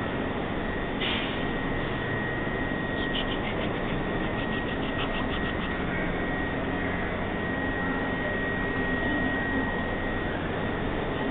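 Steady subway platform ambience: a dull rumble and hiss with a faint, steady high tone, and a brief run of fast, faint ticks a few seconds in.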